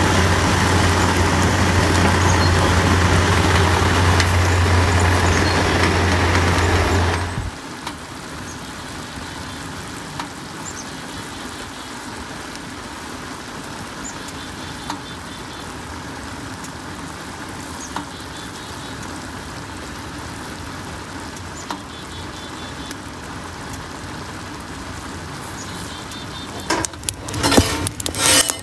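Maple sap at a rolling boil in a flat steel evaporator pan over a wood fire: a steady bubbling hiss, loud for the first seven seconds or so, then quieter with a few sharp pops. Near the end comes an irregular metal clatter and rattle as the barrel stove's firebox door is opened on the burning logs.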